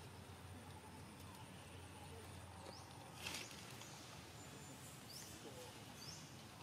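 Faint outdoor ambience: a low steady hum with three short, high rising chirps and a brief rustle about three seconds in.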